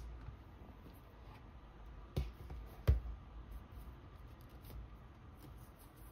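Two sharp taps a little under a second apart, about two to three seconds in. They are followed by faint rustling and ticking of plastic card sleeves as sleeved photocards are fingered through in a storage box.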